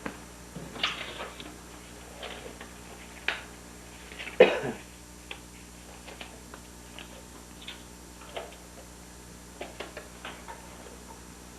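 A single cough about four seconds in, among scattered light clicks and knocks, over a faint steady hum.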